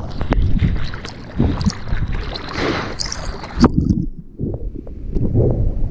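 Ocean water sloshing and splashing around a surfer in the surf, with wind buffeting the microphone. About two-thirds of the way through, the sound turns suddenly dull and muffled, leaving only a low rumble.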